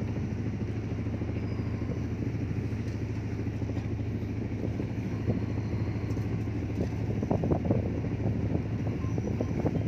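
A fishing boat's engine running steadily with a low, even hum, with a few faint knocks about seven seconds in.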